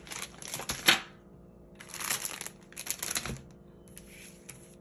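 Paper and packaging being handled and set aside: crinkling and rustling in three short bursts, with a couple of light taps.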